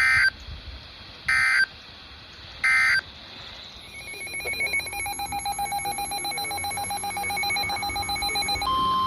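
Three short bursts of SAME digital data tones about 1.3 seconds apart: the end-of-message code of an Emergency Alert System broadcast. From about four seconds in, a rapidly pulsing electronic alarm grows louder. Near the end it gives way to a single steady tone, the NOAA Weather Radio warning alarm tone that comes before the next tornado warning.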